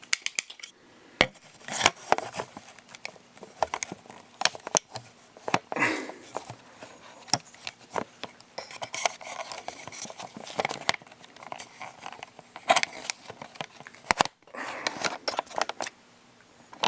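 Irregular clicks, clacks and scrapes of hard parts and tools being handled, with a few louder knocks scattered through and a stretch of rustling about two thirds of the way in.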